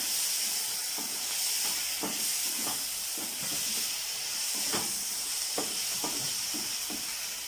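Diced onion and capsicum sizzling with a steady hiss in a kadai over lowered heat, with irregular scrapes and knocks as a spatula stirs them against the pan.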